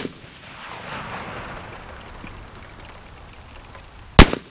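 Shots from a Marlin 1894S lever-action rifle in .44 Magnum: the tail of one shot at the very start, then a second sharp shot about four seconds in, each followed by a drawn-out echo lasting a second or two.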